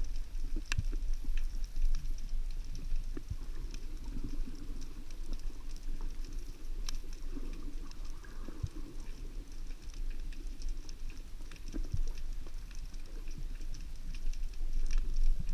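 Underwater ambience heard through a camera housing: a steady low rumble of water with scattered sharp clicks and crackles.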